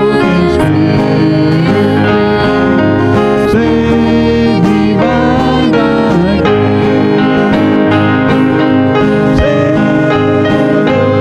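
A live band playing a worship song, with keyboard and guitars.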